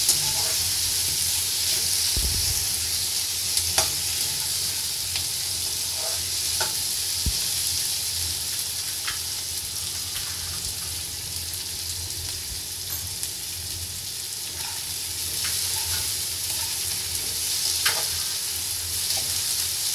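Vegetables and rice frying in hot oil in a wok-style pan, a steady sizzle. A slotted spatula stirring through them gives a few sharp clicks and scrapes against the pan.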